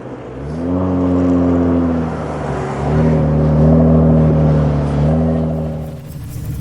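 Car engine revving: it climbs quickly to a high, held pitch about half a second in, eases off near two seconds, then climbs and holds again from about three to five seconds before dropping away.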